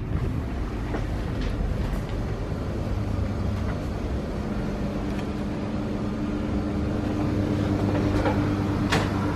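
Steady low mechanical hum of a snack bar's kitchen and refrigeration equipment, with a steady low tone joining in about five seconds in.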